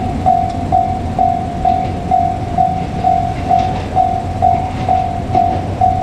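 Japanese railway level-crossing warning bell ringing, one electronic tone repeating evenly about twice a second, over the low rumble of a train.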